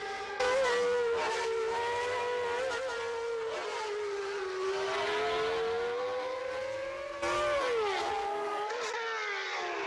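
Recreated engine note of the 1989 McLaren MP4/5's Honda V10 at high revs, played through trackside loudspeakers. The pitch holds high and drifts slowly, then drops sharply about eight seconds in, as for braking and downshifting, before climbing again.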